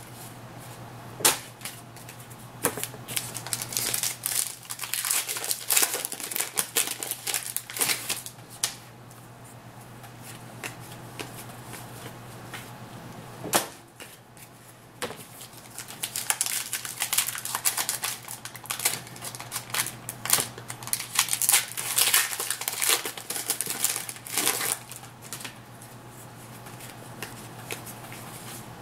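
Panini Contenders hockey cards being flipped through by hand, a run of quick crisp flicks and clicks in two long spells with quieter handling between. A steady low hum underneath.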